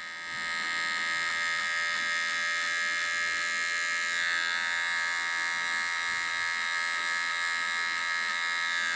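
M-PRO electric hair clipper running, a steady buzz as it cuts short hair on the side of the head.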